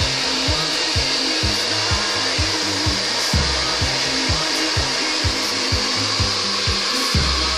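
Hand-held hair dryer blowing steadily, with background music carrying a steady low beat underneath.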